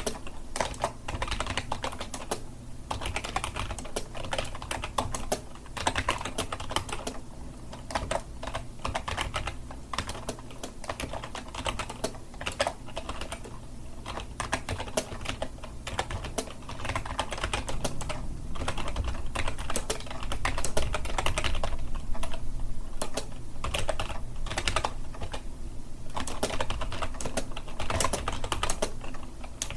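Typing on a computer keyboard: quick, irregular runs of key clicks with short pauses between them, a little louder in the second half.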